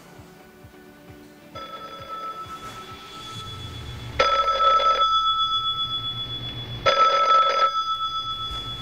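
Desk telephone ringing: two rings about two and a half seconds apart, each with a short ringing tail.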